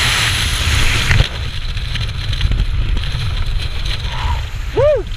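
Freefall wind rushing over a helmet camera, cutting off abruptly about a second in to a lighter wind noise under an open parachute. Near the end comes a short call that rises and falls in pitch.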